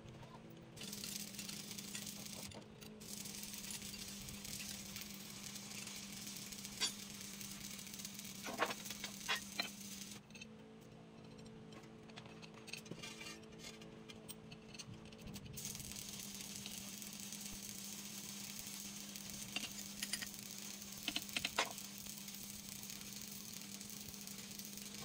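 Faint steady hiss with a low hum, broken by a few light metallic clicks of a wrench on steel flange bolts, a cluster of them about nine seconds in and more around twenty seconds.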